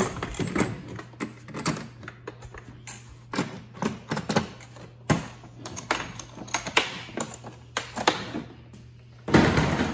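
Blue plastic case of a manual tube-swaging tool kit being lifted, tilted and set into a plastic Packout toolbox: an irregular run of clicks, knocks and rattles. A louder scraping clatter comes just before the end.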